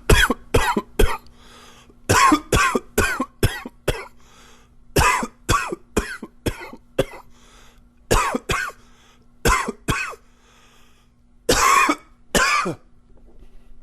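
A man's smoker's cough: repeated fits of two to five quick coughs, with short pauses between fits; the last two coughs near the end are longer.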